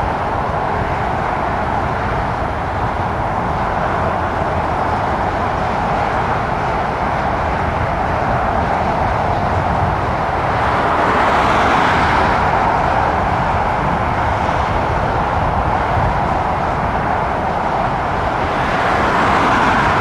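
Steady rushing roar of distant engine and traffic noise outdoors, swelling twice: about eleven seconds in and again near the end.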